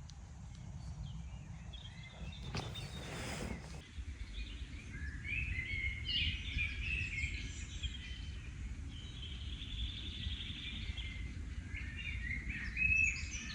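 Woodland birdsong: several birds singing short chirping phrases, busiest from about five seconds in, over a steady low rumble, with a brief rustle about three seconds in.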